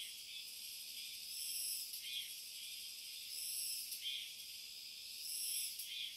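Insects singing in the forest: a high, buzzing chorus that swells and fades about every two seconds, with fainter chirps in between.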